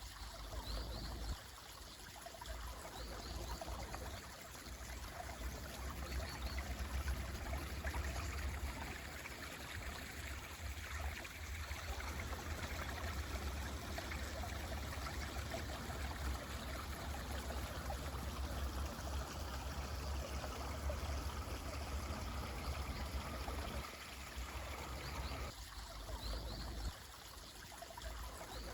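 A stream flowing and trickling in a steady rush, with a few faint, short, high bird chirps now and then.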